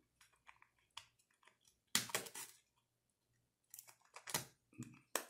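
Faint clicks and scrapes of foam parts being handled and pressed together as the tail pieces of a small foam RC jet are fitted into its fuselage. There are scattered small clicks, short bursts of scraping about two and four seconds in, and a sharp click near the end.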